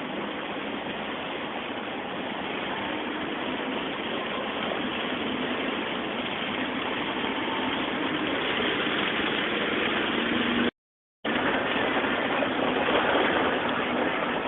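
Steady noise of heavy rain on a moving car and its tyres on the flooded road, heard from inside the car, growing slightly louder. The sound cuts out completely for about half a second near the end.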